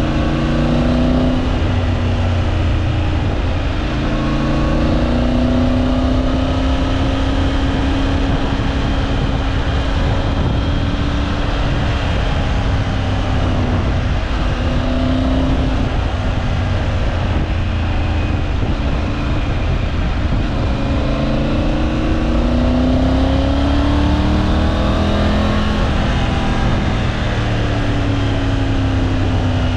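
Triumph Tiger 900 Rally Pro's three-cylinder engine under way, its note rising and falling several times as the bike accelerates and eases off, over a steady rush of wind noise.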